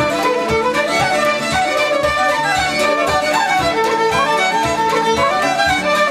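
Irish traditional music: a fiddle playing a lively melody over a steady rhythmic accompaniment.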